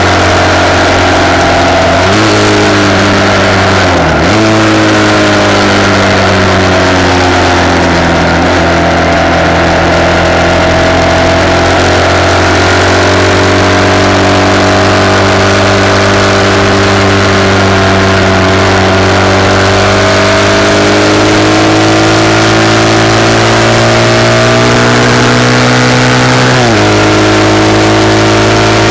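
RPS Hawk 250's single-cylinder four-stroke engine running under way through a de-catted CRF230 exhaust, picked up by a handlebar-mounted camera. The revs rise about two seconds in, dip briefly and come back about four seconds in, then hold a fairly steady cruising note that slowly sags and climbs, with another change in engine speed near the end.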